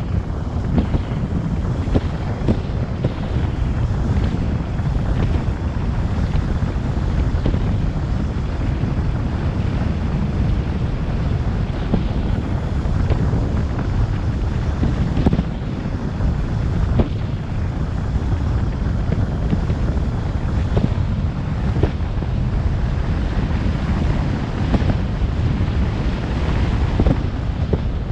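Wind buffeting the camera microphone as a recumbent bike coasts downhill at speed: a loud, steady low rumble, with scattered small knocks throughout.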